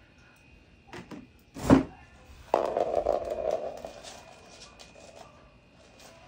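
A tegu moving about on a wooden floor among its food and a plastic bag: light clicks, a loud thump about a second and a half in, then a scraping noise that fades over about a second and a half.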